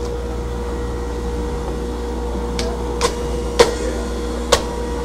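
Electric juicer's motor running with a steady whir while carrots are fed through it. Four sharp knocks come between about two and a half and four and a half seconds in, the third the loudest.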